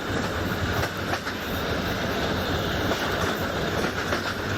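Toy electric train set running fast along its track: a steady mechanical noise of the small motor and wheels on the rails, with a few faint clicks.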